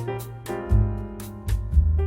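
Background music: held keyboard chords over a heavy bass line, with a steady beat of sharp drum hits.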